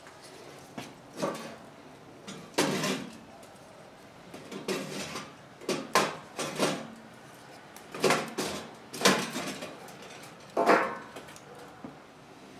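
Sticks of wood being pushed through the side feed opening of a thin-walled stainless-steel gasifier stick stove, knocking and scraping against the metal in a run of irregular clatters.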